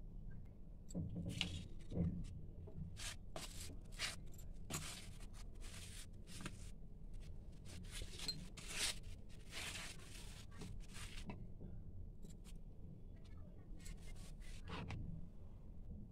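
Soft, irregular rustling and scraping of a stack of cooked wheat rotis being handled on a steel plate, over a faint steady low hum.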